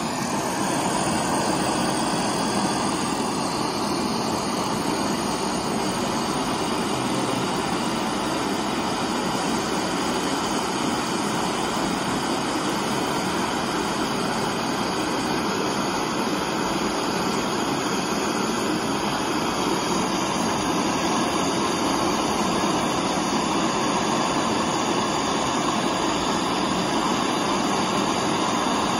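Gas torch flame burning with a steady, even hiss as it heats two thin metal tubes held in a clamp.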